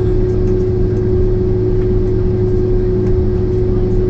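Steady cabin drone inside a Boeing 767-400ER waiting for takeoff with its engines idling: a constant hum with one steady tone over a low rumble.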